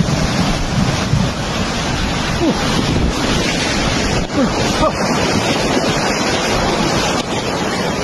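Flash-flood torrent of muddy water rushing and churning through trees, loud and steady, with wind buffeting the microphone.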